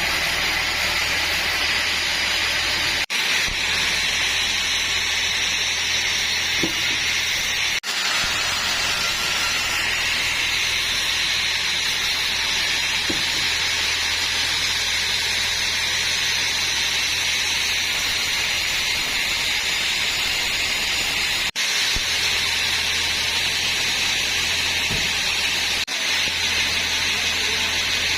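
Sawmill saw running steadily: a constant hiss over a low hum, with four brief dropouts.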